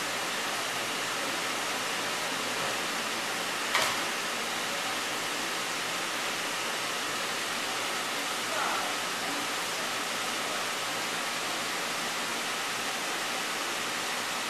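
Steady rush of water pouring into a sea turtle rehab tank through its filtration return pipes. A single sharp click comes about four seconds in.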